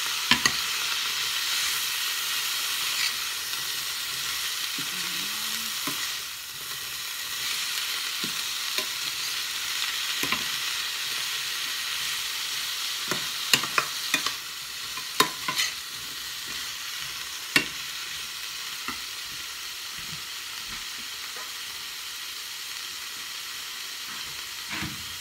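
Green beans, onion and shrimp sizzling steadily in a stainless steel frying pan, stirred with a metal spoon that clinks and scrapes against the pan a number of times, mostly in a cluster past the middle. The sizzle eases a little in the second half.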